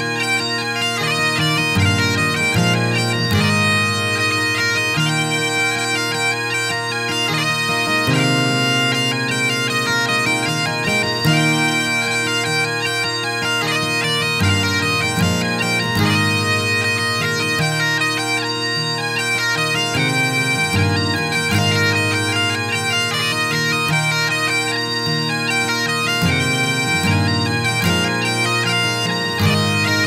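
Scottish Great Highland bagpipes playing a tune, the melody notes changing quickly over steady held drones.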